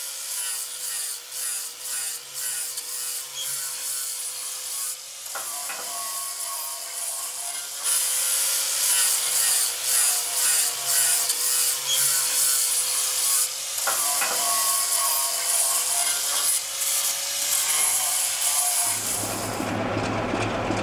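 A hand-held power tool scraping and grinding on a steel locomotive boiler: a harsh rasping hiss over a steady whine, louder about a third of the way in. Near the end it cuts to a diesel locomotive idling with a low steady rumble.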